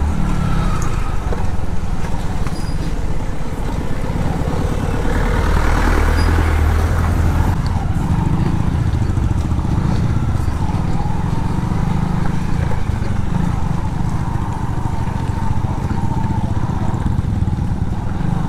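Hero Honda Super Splendor's single-cylinder engine running as the motorcycle is ridden, a little louder around six seconds in.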